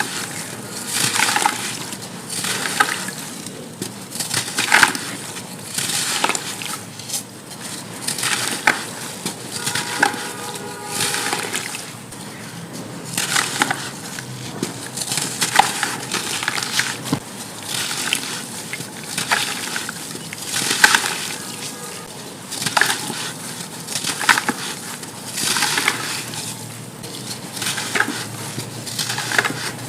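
Dry sand chunks crumbling and crushing: repeated gritty crunches that swell and fade about every second and a half.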